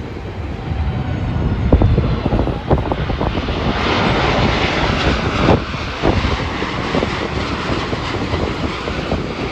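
Jet airliner passing close on its landing approach. The engine rush swells about three seconds in, is loudest around the middle and stays strong, with low thumps of wind on the microphone underneath.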